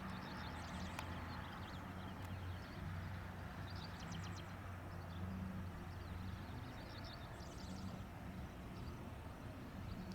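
Outdoor ambience: a steady low hum under a faint hiss, with three or four short bursts of rapid, high-pitched chirping trills.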